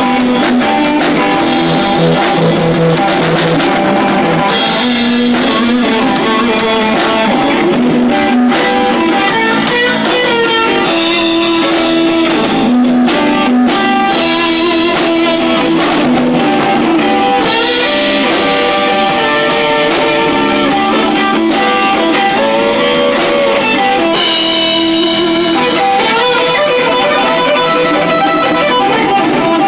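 A small rock band playing live: electric guitar, bass guitar and a Pearl drum kit with cymbals. The cymbal strokes stop about five seconds before the end, leaving the guitars ringing on.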